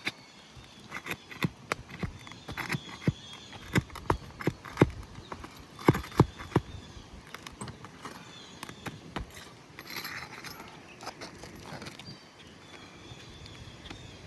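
Irregular sharp knocks and taps on an asphalt-shingle roof as the shingles are worked with hand tools. There is a dense run of loud knocks in the first half, then fainter scattered taps.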